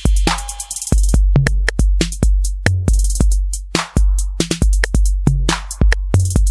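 Roland TR-8S drum machine playing a factory preset beat: long, deep bass-drum hits under a quick pattern of snare or clap hits and hi-hats.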